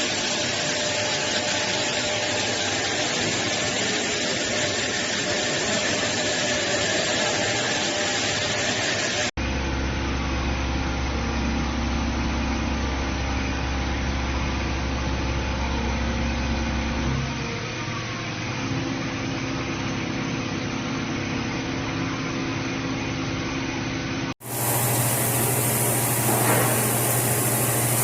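CNC machining centre running: a steady machine hum under a noisy hiss of cutting. The sound cuts abruptly to a different shot about 9 seconds in and again about 24 seconds in, and each shot has its own hum.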